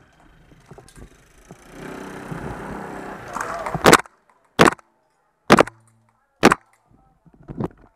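GHK G5 gas-blowback airsoft rifle firing single shots: four sharp cracks about a second apart, then a fainter one near the end.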